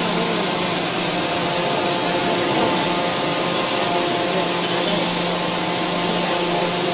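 Steady hum and hiss of hydraulic forging-shop machinery running, with a few held tones in it and no hammer blow.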